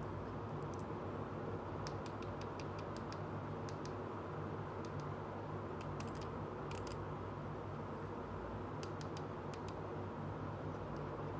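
Scattered light clicks and taps from a small plastic toy dresser with a mirror being picked up and turned over in the hands, over a steady low electrical hum.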